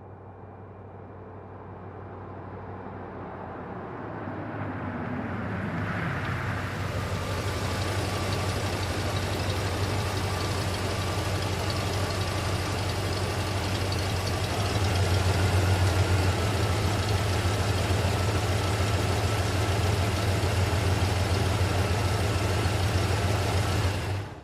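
A vehicle engine running steadily with a low, rhythmic hum and a faint whine. It swells in over the first several seconds with a falling sweep in pitch, then cuts off abruptly at the end.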